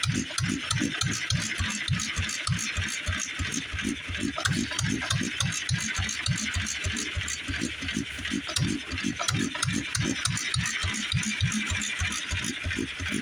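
International Harvester Model M stationary engine running a line-shaft machine shop, beating steadily at about four beats a second, with a constant higher hiss over it.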